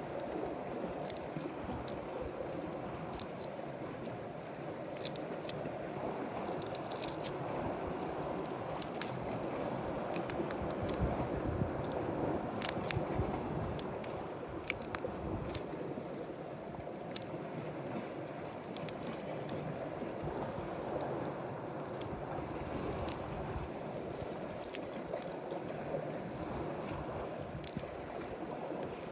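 Metal tweezers clicking and scraping against gooseneck barnacle shells, in many short sharp clicks and crackles spread through the whole stretch, over a steady low rushing noise.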